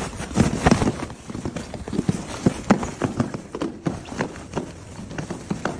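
Rapid, irregular knocks and scuffs, several a second, like hurried footsteps or a body thrashing about.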